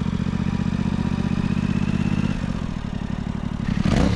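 Yamaha R7 parallel-twin engine idling through a newly fitted aftermarket slip-on exhaust, then a short rev blip near the end.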